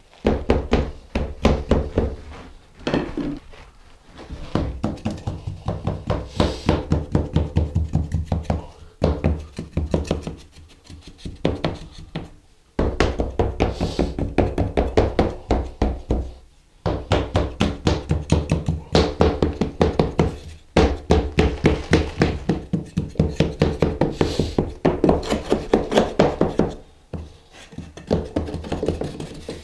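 A hand float tapping rapidly on packed sand-mix mortar (deck mud) of a shower pan, about four to five taps a second in runs of several seconds with short pauses. This is the final pass, tapping the bed to settle it flat instead of smoothing it.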